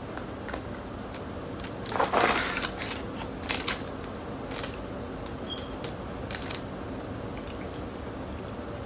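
Plastic snack wrapper being handled and opened: crinkling and rustling, loudest in a short burst about two seconds in, with scattered small crackles after.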